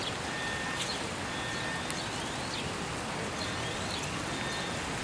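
Steady hiss of rain falling on floodwater, with birds chirping over it: a few short whistles and a couple of rising calls.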